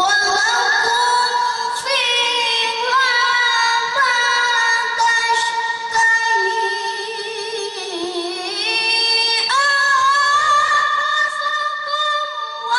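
A boy qari reciting the Quran in melodic tilawah style into a microphone: long held notes with wavering ornaments that dip lower partway through and climb higher again.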